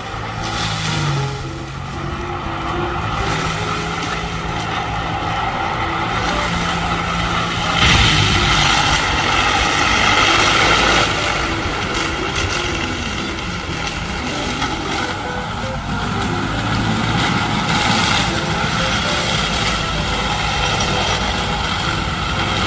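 Excavator engine running with a boom-mounted brush-cutter (weed whacker) attachment working. The sound is steady, then louder and rougher for about three seconds in the middle.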